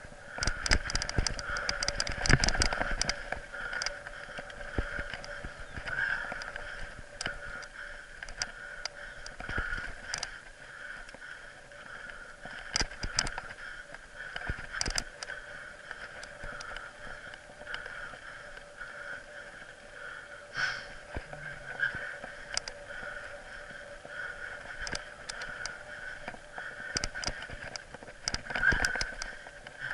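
Mountain bike rolling over a bumpy dirt singletrack: tyres on dirt and gravel, with frequent knocks and rattles as the bike jolts over bumps, heaviest in the first few seconds and again near the end. A steady whine runs underneath.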